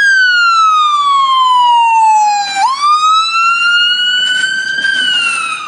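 Loud electronic siren of a fire-rescue ambulance on a wail: a slow fall in pitch, a quick jump back up partway through, then a slow rise that tops out and starts falling again near the end.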